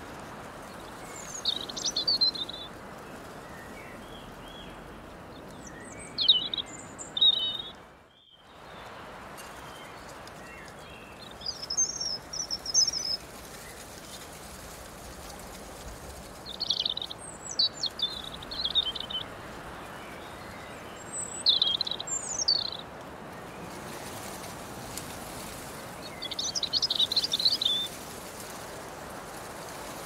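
Small songbirds singing short, high chirping phrases every few seconds over a steady hiss of meadow breeze. The breeze briefly drops out about eight seconds in.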